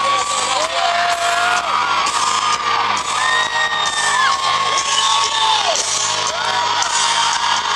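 Live pop-punk band playing loud from inside the crowd: a steady drum beat, a dense wash of band sound, and singing that holds long notes. Audience whoops are mixed in.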